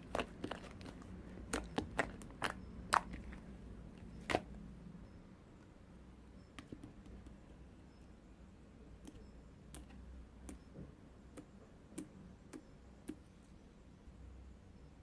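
Scattered light clicks and taps over a low steady hum. The clicks come thickly in the first few seconds, then thin out to an occasional one.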